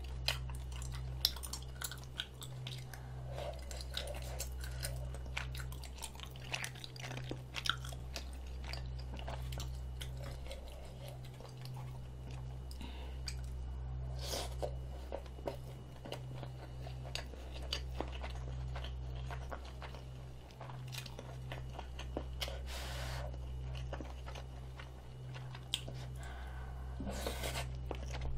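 Close-miked chewing and biting of spicy rabokki: chewy rice cakes and ramen noodles, with many small wet mouth clicks and smacks, over a steady low hum.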